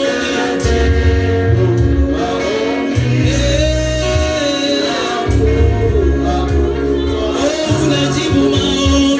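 Live gospel praise-and-worship music: voices singing a slow melody together with a band, over a deep bass line that steps from note to note.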